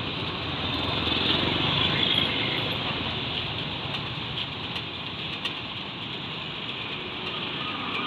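A steady engine-like motor rumble with a constant high hiss and a few faint clicks.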